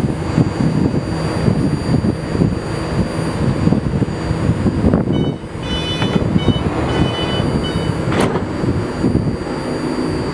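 A BART Bombardier-built train stands at the platform with its doors closed, its equipment running with a steady low rumble. About five and a half seconds in, a short run of high beeps sounds, followed by a brief rising sweep about eight seconds in.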